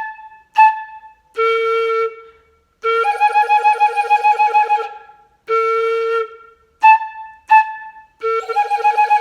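Flute head joint played on its own in a rhythm pattern, twice: two short high notes with the end open, a held note about an octave lower with the end closed, then a long wavering, pulsing note made with a special hand movement at the end of the tube.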